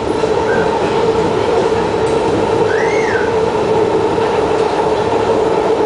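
In-car running noise of a Kawasaki C151 EMU: a loud, steady drone of the train's motors and wheels on the track. About three seconds in comes a brief squeal that rises and falls in pitch.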